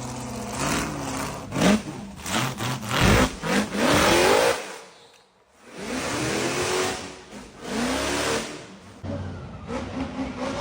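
Off-road vehicle engine revving, its pitch rising and falling repeatedly, with a short break about five seconds in.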